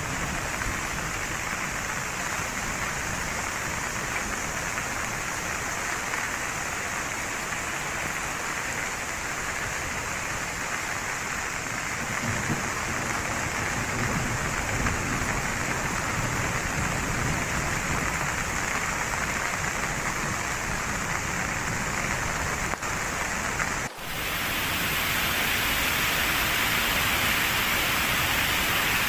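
Steady rushing noise of heavy rain and running water. About 24 seconds in it cuts to a louder, brighter, continuous rush: a muddy river in spate.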